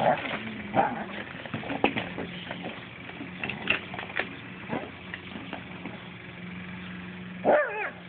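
Afghan hounds worrying a PVC drain pipe: irregular knocks and scrapes from the pipe over a steady low hum, with a short pitched cry near the end.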